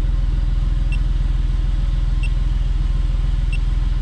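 Smart Fortwo's three-cylinder engine idling steadily, heard from inside the cabin, with a faint short chirp about every second and a half.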